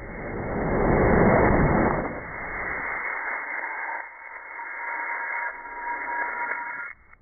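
Static-like rushing noise that swells up over the first second or so, runs on with a faint steady whistling tone in its second half, and cuts off suddenly near the end.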